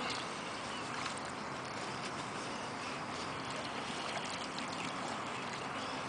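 Steady watery rustle with a few faint clicks, from a wet weigh sling holding a carp being handled on a wet unhooking mat.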